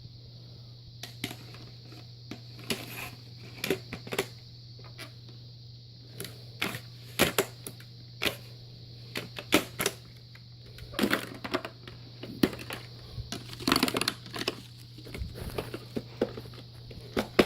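Irregular clicks and light knocks of hard objects being handled, over a steady low hum.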